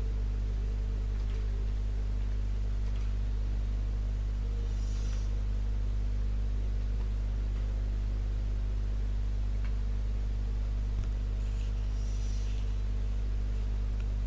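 Steady low electrical hum with a faint hiss behind it. Twice, about five seconds in and near the end, there is a brief soft scratchy sound.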